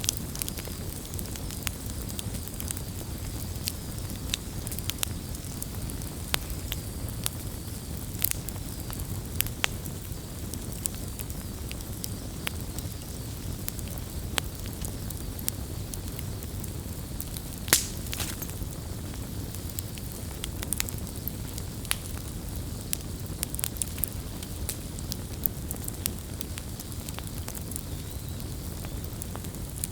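Wood campfire burning with a steady low rumble of flames and frequent sharp crackles and pops, one louder pop a little more than halfway through.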